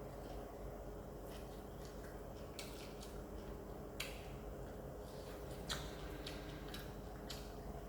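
Crunchy deep-fried fish being bitten and chewed close to the microphone: irregular sharp crunches, the loudest about four and about five and a half seconds in.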